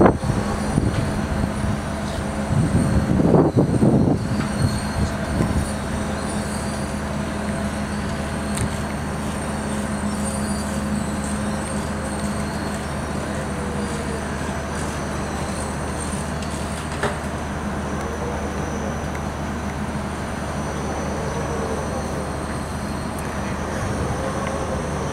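Giant pendulum fairground ride running empty on a test cycle: its drive machinery gives off a steady mechanical hum and rumble as the arm swings. A louder burst of low rumble comes about three to four seconds in.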